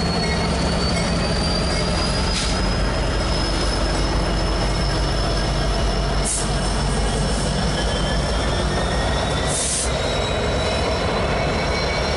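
Norfolk Southern freight train rolling by with its steel wheels squealing in steady high tones that slowly drift in pitch, over a steady low rumble from the train. Two brief hisses come about six and ten seconds in.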